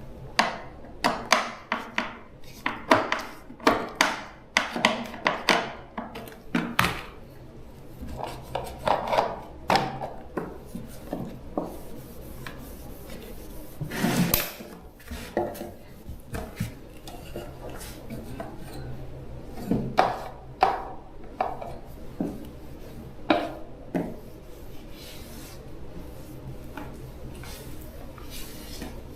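Irregular knocks, taps and scraping or rubbing, like objects being handled and worked by hand, over a faint steady low hum.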